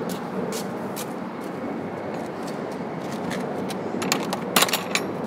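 Phone being handled and moved: a steady background rumble with scattered clicks, and a cluster of rubbing knocks and clicks about four seconds in.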